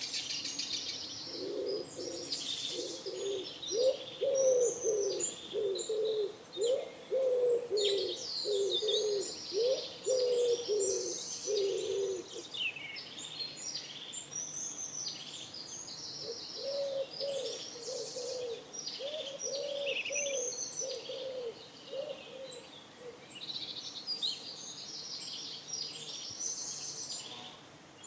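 Pigeons cooing in two runs of repeated low notes, one for the first twelve seconds or so and another a few seconds later. Small birds chirp and twitter on high the whole time.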